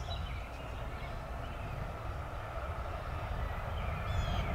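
Low rumble of an approaching freight train's locomotives, growing slowly louder, with a faint steady hum above it.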